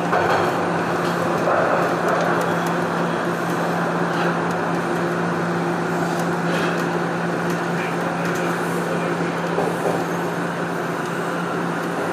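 Toronto Rocket subway train running through a tunnel: a steady rumble of wheels on rail with a constant low hum underneath.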